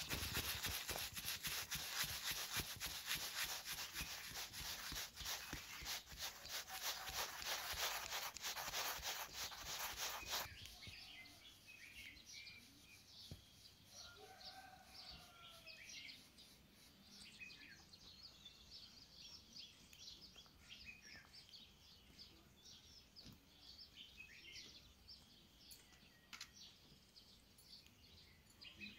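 Rapid, rough scraping or rubbing by hand for about ten seconds that stops abruptly, followed by birds chirping in the background.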